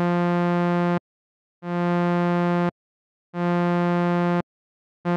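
Serum 2 software synth repeating a single bright note, with its overtones reaching up to about 4 kHz. Three notes of about a second each, with short silences between, and a fourth begins near the end. The amp envelope's attack is being lengthened, so the second and third notes swell in instead of starting sharply.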